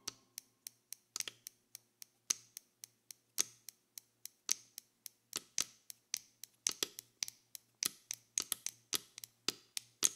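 A string of sharp, irregular clicks, a few a second, coming more often towards the end, over a faint low hum.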